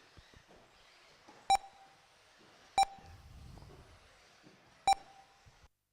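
Three short electronic beeps from an RC race lap-timing system, unevenly spaced, each marking a car's transponder crossing the timing loop.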